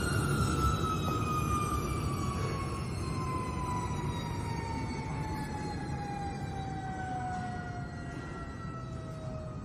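Motor on a CNC oscillating knife cutting machine winding down: a whine with overtones that falls slowly and evenly in pitch over a low rumble.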